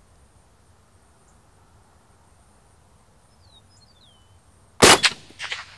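One shot from a suppressed Springfield M1A rifle in .308 Winchester, fitted with an AAC SDN-6 suppressor, about five seconds in after quiet outdoor ambience. It is a sudden, sharp report with a brief trailing echo.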